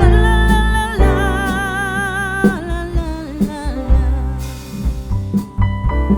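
Background music: a song with a sung voice holding long notes with vibrato over bass and drums.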